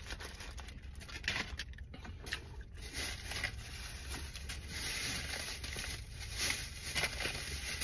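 Rustling and crinkling of packaging being handled, with small clicks and knocks, getting busier about three seconds in.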